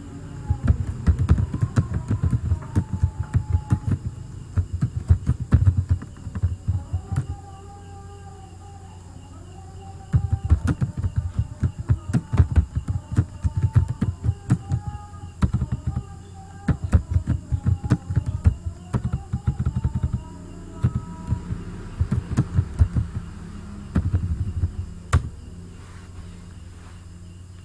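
Computer keyboard typing in fast bursts of key clicks, with a pause of a few seconds about a third of the way in, stopping near the end. A steady low electrical hum runs underneath.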